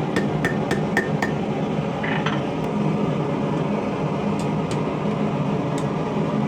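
Blacksmith's hammer striking hot rebar on an anvil: five quick, even blows about four a second that stop after about a second. They are followed by a brief scrape and a few scattered light clinks, over a steady low hum.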